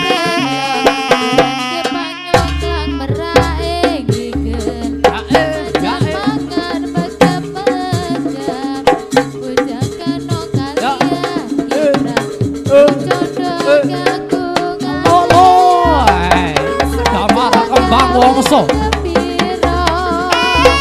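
Live Javanese folk music for a kucingan parade troupe: hand drums beat a fast, busy rhythm under held melodic notes. A deep bass comes in about two seconds in, and the melody grows louder and busier near the end.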